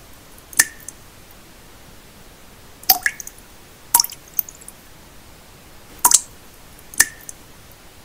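Water drops falling one at a time into still water: about five sharp drips, each with a short ringing plop, a second or so apart, over a faint steady hiss of pink noise.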